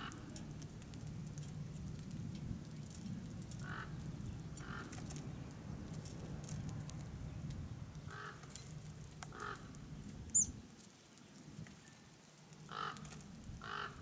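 Outdoor ambience of a few short, harsh animal calls spaced a second or more apart, with a single high chirp about ten seconds in. A low steady hum underneath stops about ten and a half seconds in.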